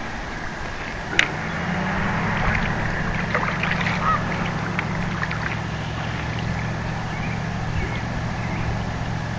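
A motor engine drones steadily at a low pitch, coming in about a second and a half in, with a single sharp click just before it and scattered faint chirps and ticks over it.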